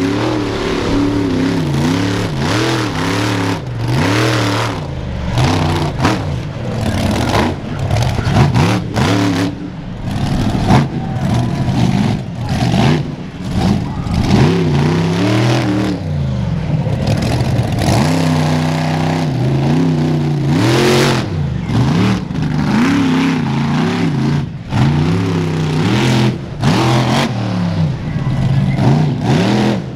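Monster truck engine revving hard over and over, its pitch climbing and falling with each burst of throttle.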